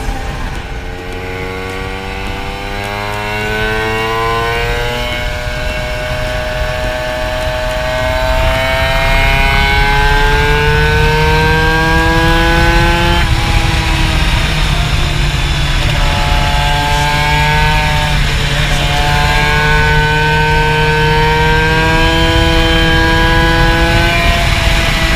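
Two-stroke Vespa scooter engine pulling hard at speed, its pitch climbing steadily and then dropping back several times as it shifts up through the gears.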